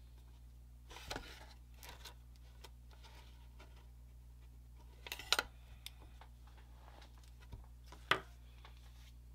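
A few light knocks and rubs of small hand tools being handled and set down on a workbench, with a louder pair of knocks about five seconds in. A low steady electrical hum runs underneath.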